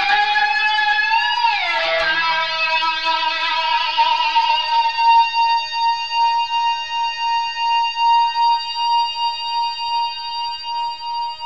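Lap steel guitar played with a ceramic slide: a few notes glide downward in pitch, then from about four seconds in a chord is held with long sustain from the Sound Stone Sustainer, swelling and fading slowly over and over before it is cut off at the end.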